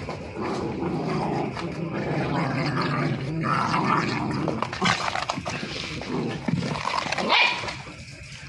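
Two dogs, an Italian greyhound and an Italian greyhound–Pomeranian mix, play-fighting with steady rough growling, broken by a few sharper outbursts, the loudest about seven seconds in. The growling dies down near the end.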